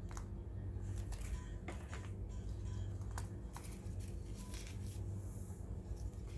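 Irregular rustles and small clicks of ribbon being handled and folded into a bow by hand, over quiet background music.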